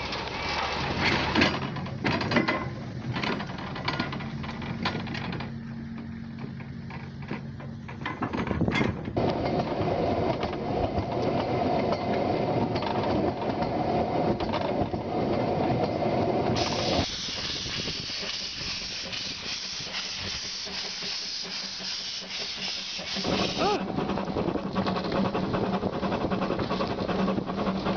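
Narrow-gauge steam railway sounds in several abrupt cuts. First come knocks and clanks of wagons being shunted. Then a small steam locomotive runs with open coaches, its steam hissing. Near the end a train runs over snow-covered track.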